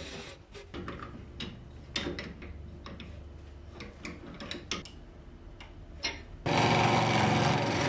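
Low hum of the wood lathe, then a series of sharp metal clicks and clinks as a chuck key works the four-jaw chuck holding the pencil blank. About 6.5 s in, a loud steady rushing noise starts suddenly: a turning tool cutting on the spinning lathe.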